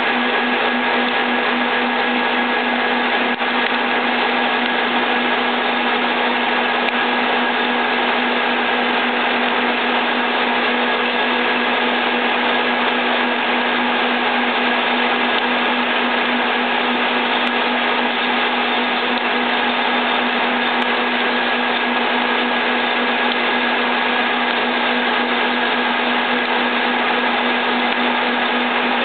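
Soviet 2L614 horizontal boring machine running, its spindle driving a 25 mm HSS drill bit into a steel workpiece at about 250 RPM. The sound is a steady, even mechanical whir with a constant low hum and a higher whine.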